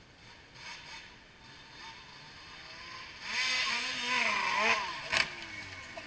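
Snowmobile engine coming closer and revving, its pitch rising and falling, then one sharp crash about five seconds in as the sled runs into another snowmobile.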